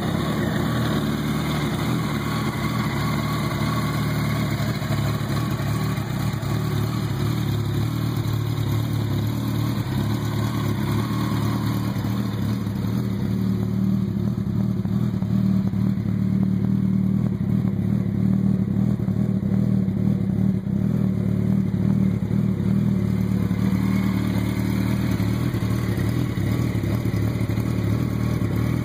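2004 Yamaha R1's inline-four engine idling steadily, a little louder for a stretch in the middle.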